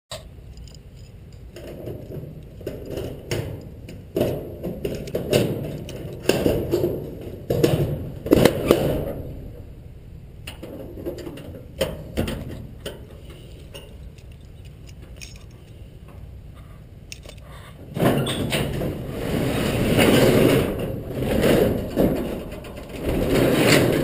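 Keys jingling and a padlock being worked open on a metal door hasp, with short clicks and rattles. About three-quarters of the way through comes a louder, longer scraping and rattling as the shed door is pulled open.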